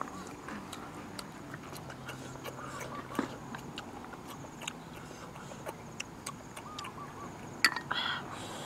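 Cooked snail shells clicking and tapping as they are handled in a small bowl and eaten, with a sharper click near the end.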